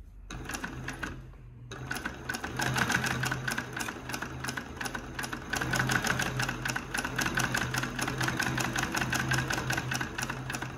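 Consew 289RB-2 post-bed walking-foot lockstitch industrial sewing machine sewing steadily through muslin. Its motor starts humming at the very start, and about two seconds in a rapid, even clatter of stitches begins and keeps going.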